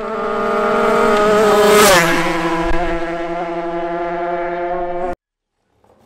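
Shifter kart two-stroke engines at speed passing by: the note grows louder as they approach, drops sharply in pitch about two seconds in as they go past, then holds lower until it cuts off suddenly about five seconds in.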